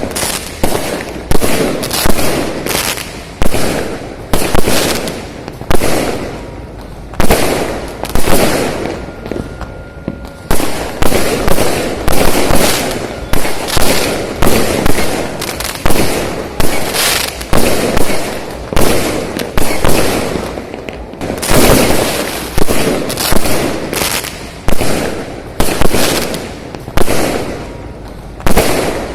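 Many fireworks going off at once across the city, a dense, continuous barrage of bangs and crackling, several explosions a second overlapping one another.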